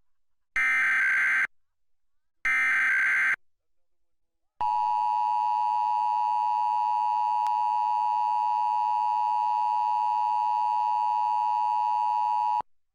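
Emergency Alert System test tones: two one-second bursts of SAME digital header data about a second apart, then, after a short pause, the steady two-tone EAS attention signal held for about eight seconds and cut off abruptly.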